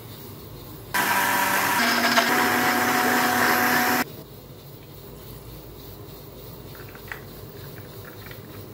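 Electric countertop blender running for about three seconds, blending watermelon chunks, mint leaves and ice. Its motor pitch steps up about a second after it starts, then it stops abruptly.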